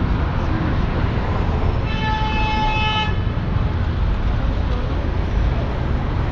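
A vehicle horn sounds one steady toot, a little over a second long, about two seconds in, over continuous city street noise.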